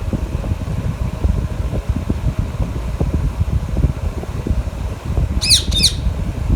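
A steady low rumble with uneven buffeting. Near the end a parrot gives two quick shrill calls in a row, each falling sharply in pitch.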